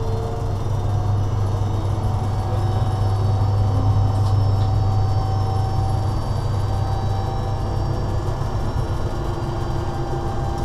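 Steady running noise inside a moving BDZ locomotive's cab: a strong deep hum under a continuous rumble, with faint steady whines above.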